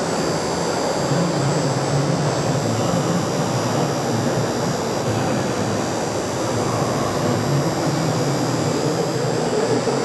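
Steady, even din of a busy exhibition hall, a constant rumble and hiss with no single sound standing out.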